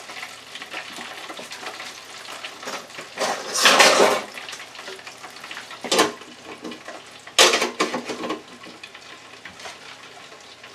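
Metal and dishware clattering in a kitchen: two loud rattling spells, each about a second long, and a single sharp knock between them, over a faint steady hiss.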